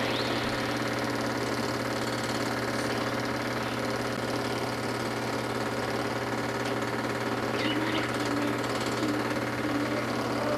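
Film projector running: a steady mechanical whir with a constant hum, and a few faint short squeaks about three-quarters of the way in.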